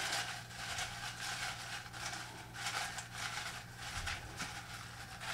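A hand rummaging through paper slips inside a ceramic mug, a run of light rustling and scratching over a faint steady low hum.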